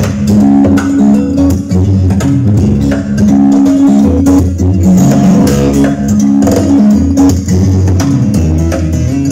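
Recorded band music played loud through a demo loudspeaker system: a prominent bass guitar line under guitar and a drum kit keeping a steady beat.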